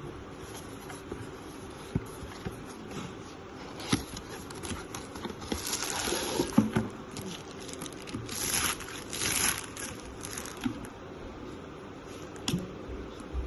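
Handling noises from unboxing: scattered clicks and knocks, with two longer bouts of rustling about six and nine seconds in.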